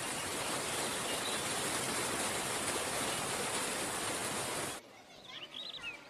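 Mountain river rushing over white-water rapids, a steady rush of water that cuts off suddenly near the end, leaving a few faint bird chirps.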